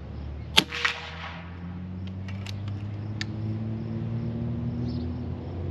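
A single shot from a .22 Cattleman T1 air rifle: a sharp crack about half a second in, then a softer second crack just after. A few light clicks follow over a steady low hum.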